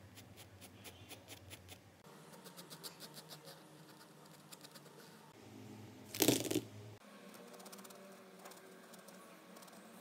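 Graphite pencil scratching on textured drawing paper in rapid short strokes. About six seconds in comes a brief, loud clatter as Posca paint markers are handled, followed by the faint scrape of a marker tip drawing.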